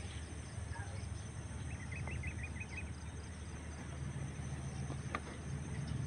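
Outdoor ambience: insects trilling steadily over a low rumble, with a bird calling a quick run of about seven short notes about two seconds in. A single sharp click sounds about five seconds in.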